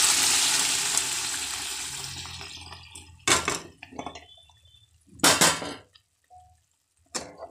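Cooked mustard-greens saag poured into a hot pan of fried onion-tomato tadka, hissing and sizzling loudly and dying away over the first two or three seconds. Then a few separate clinks and scrapes of a metal spoon against the pan.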